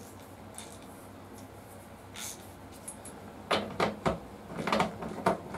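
Metal hand tools knocking and clinking against motorcycle parts during work on the rear axle and chain adjusters: a quiet stretch, then a quick run of about six sharp clicks and knocks starting about three and a half seconds in.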